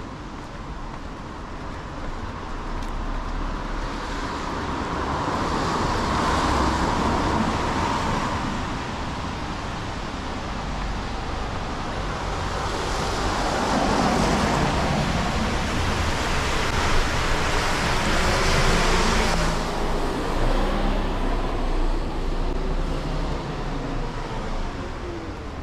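Road traffic passing on a wet city street: a steady hiss of tyres, swelling as one vehicle goes by about five seconds in and again as heavier traffic passes from about the middle on, with some low engine rumble.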